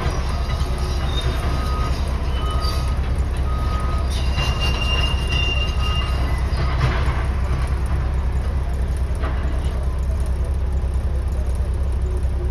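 Steady low engine rumble, heard from inside a vehicle cab, with a few short faint beeps repeating in the first few seconds.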